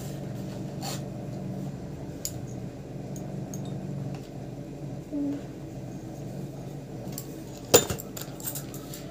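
Kitchen utensils and dishes clinking: a few light clinks and one sharp, louder clink near the end, over a steady low hum.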